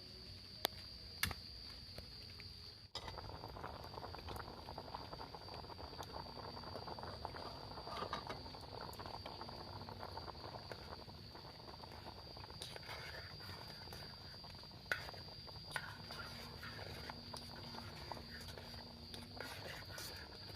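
Rain pattering, with scattered drips, over a steady high-pitched insect drone; the patter turns abruptly denser about three seconds in.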